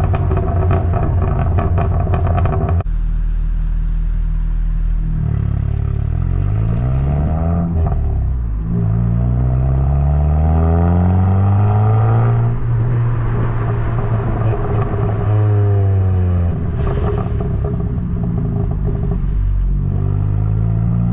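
Hyundai i20N's 1.6-litre turbocharged four-cylinder engine and exhaust: the revs climb in steps through gear changes, then fall away as the car slows under engine braking, with crackles from the exhaust on the overrun.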